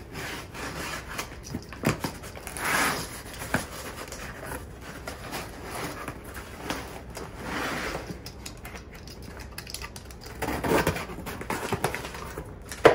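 A small knife cutting packing tape on a cardboard box, with cardboard scraping and rubbing as the box is turned and handled, in bursts a few seconds apart. There is a sharp knock near the end.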